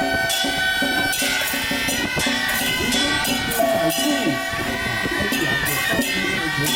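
Taiwanese temple ritual music: shrill double-reed suona horns hold a melody over clashing gongs and cymbals.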